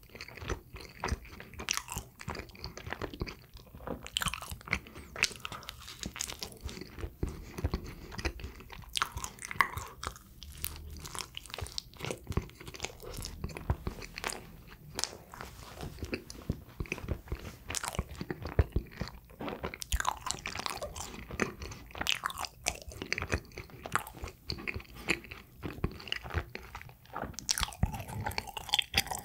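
Close-miked chewing and biting of sweet cream-filled bread: a steady run of irregular small mouth clicks and smacks.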